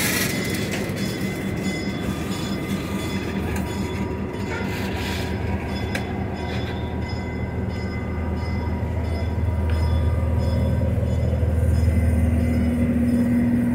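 Passenger cars of a diesel-hauled excursion train rolling slowly past at close range, with a steady low rumble that grows louder near the end.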